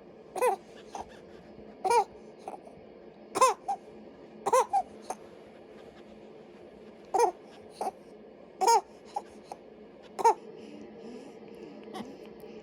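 A two-month-old baby fussing: about a dozen short cries, each well under half a second, spread over the first ten seconds.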